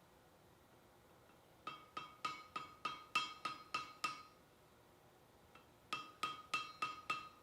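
Ball peen hammer striking a 20 mm iron bar over the anvil's bick, in two runs of ringing blows about three a second, working in the square-to-round transition.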